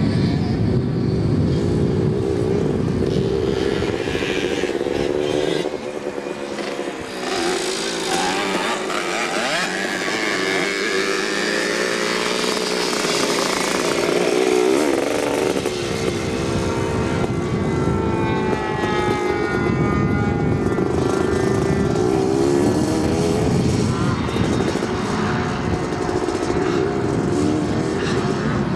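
Motocross bike's engine running as it is ridden around a grass course, the revs rising and falling repeatedly. It is nearest and brightest in tone around the middle, as the bike passes close.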